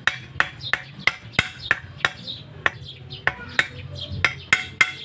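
Steel hammer striking the end of a 32 mm galvanised iron pipe used as a punch, about three blows a second, each with a short metallic ring, driving it through an ejector pump's leather cup to cut a hole.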